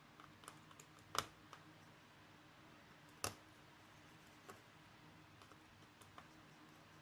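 Faint, sparse clicks and taps from hand work on an opened MacBook Pro, with two sharper clicks about a second in and about three seconds in, over quiet room tone.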